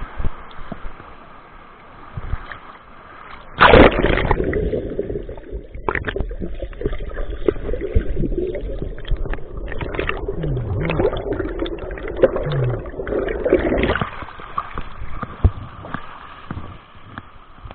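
Rushing mountain river water at the camera. About four seconds in, the camera plunges under the surface with a loud splash, and the sound turns to a muffled, bubbling underwater rumble. Near the end it returns to the hiss of fast, shallow water.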